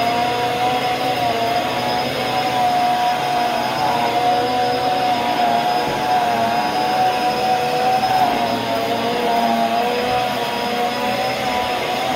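Bissell upright bagless vacuum cleaner running while pushed over carpet: a steady motor whine over a rushing hiss, its pitch wavering slightly as the load on it changes.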